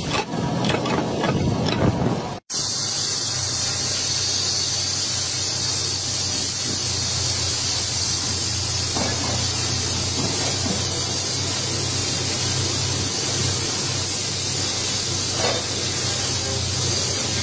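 Hose-fed spray gun hissing steadily as it sprays onto a large steel pipe, with a steady low hum underneath; it starts abruptly after a different, uneven noise in the first couple of seconds.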